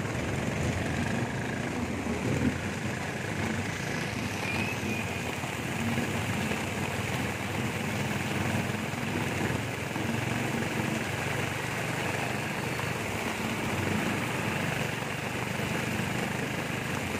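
Motorcycle engine of a tricycle running steadily while riding, with heavy rain falling all around.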